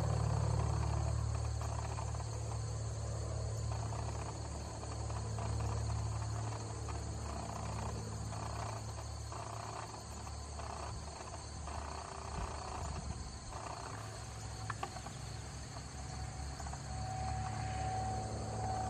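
Insect chorus: a steady high-pitched trilling of several insects over a low rumble.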